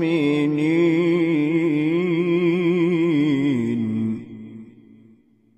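Male Qur'an reciter (qari) in the melodic murattal/mujawwad style, holding one long ornamented note with a wavering vibrato. The note breaks off about four seconds in and dies away to silence.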